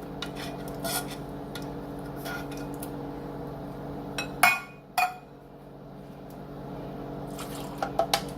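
A spoon clinking and scraping in a metal can while milk is stirred into the cream of chicken soup left inside, loosening it. There are a couple of sharper knocks about halfway through and a few quick clinks near the end.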